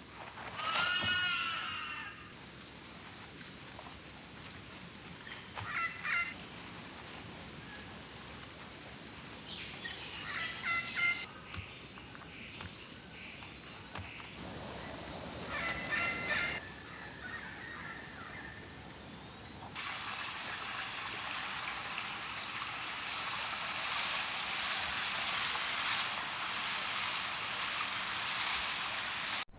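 Outdoor bird calls: one loud call about a second in, then a few shorter calls spread through the rest. Under them is a steady high-pitched tone, and after about twenty seconds a dense high hiss like insects chirring.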